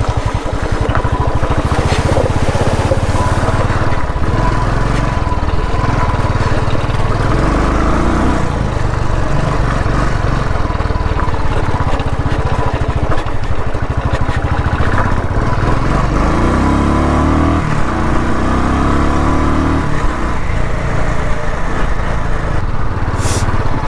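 Royal Enfield Classic 350's single-cylinder engine thumping steadily as the motorcycle is ridden. Its note rises and falls with the throttle a little after the middle.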